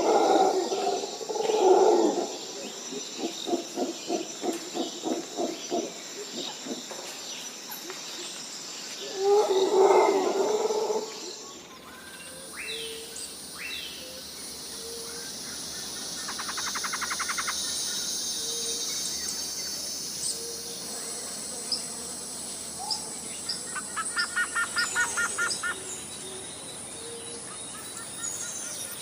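Jungle ambience: a steady high insect drone under animal calls. Loud low calls, including a run of rhythmic pulses, fill the first part. About twelve seconds in it changes abruptly to bird chirps and fast trilling calls.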